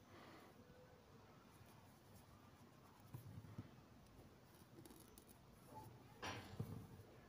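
Near silence with faint needlework handling sounds: soft bumps of hands on a wooden embroidery hoop, and a brief rasping rustle a little after six seconds in as the thread is drawn through the fabric.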